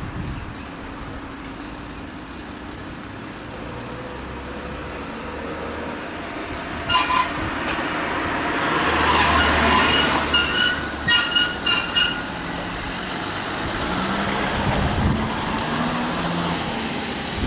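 Mercedes-Benz Sprinter ambulance pulling away with its engine running, giving a few short horn blasts about halfway through, first two and then a quick run of them. The engine note rises near the end as it accelerates off.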